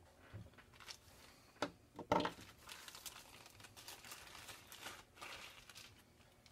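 Clear plastic parts bag crinkling and rustling as small resin model parts are handled and slipped into it, in short crinkles, the sharpest about two seconds in.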